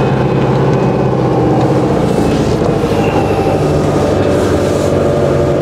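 Motorhome engine running steadily at low speed, a constant drone with no changes.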